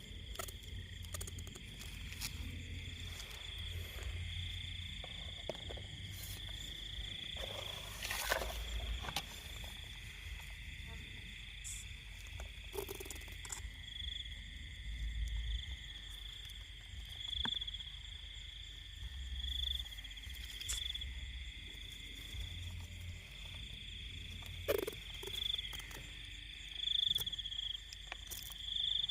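A night chorus of crickets: a steady high trilling that swells and fades now and then, with scattered clicks and low rumbles from handling and movement.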